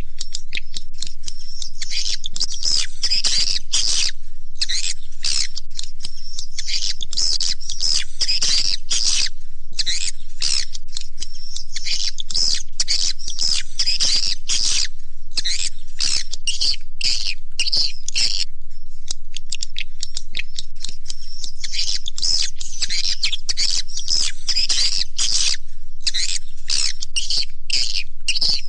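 Swiftlet call sound (suara panggil walet): a dense, continuous chorus of high, rapid twittering chirps from edible-nest swiftlets, with short irregular breaks. It is the lure call played in swiftlet houses to draw the birds in to roost and nest.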